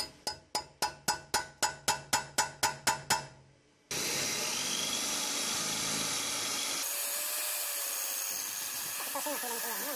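A hammer tapping a centre punch into an aluminium BMW cylinder head about a dozen times, roughly four blows a second, each with a short metallic ring. The punch marks the ends of cracks so they can be drilled and stopped. A steady noise sets in suddenly about four seconds in.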